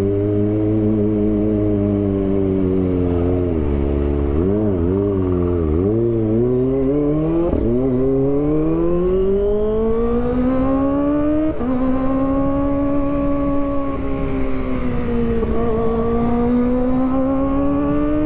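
Kawasaki ZX-25R's 250 cc inline-four engine under way: a few short throttle blips at low speed, then revs climbing steadily as the bike accelerates. About two-thirds through the pitch drops suddenly as it shifts up, eases briefly, and climbs again.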